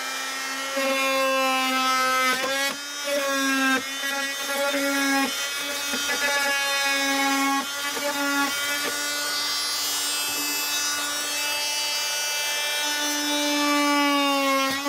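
Small cordless oscillating multi-tool cutting into a wooden wall panel. Its motor whines at a steady pitch that dips under load, and it stops and restarts several times as the cut goes on.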